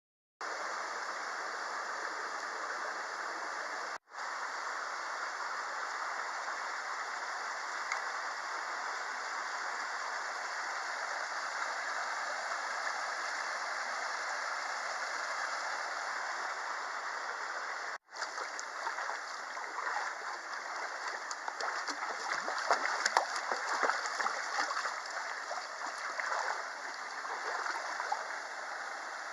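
Mountain stream rushing over rocks, a steady water noise that drops out briefly twice. From about two-thirds of the way in, irregular splashes sit on top of it, as from wading through the shallow water.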